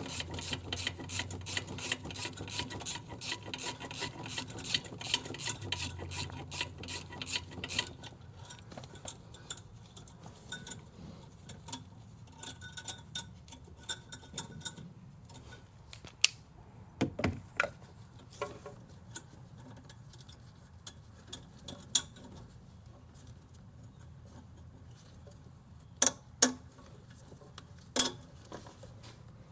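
A socket ratchet clicking rapidly and steadily as it works a bolt loose through a wobble extension; it stops about eight seconds in. Then come scattered metallic clinks and knocks of tools against the truck, a few of them sharp and loud.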